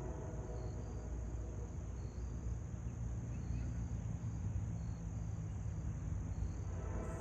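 Steady low rumble, with a high insect chirp repeating about twice a second over it.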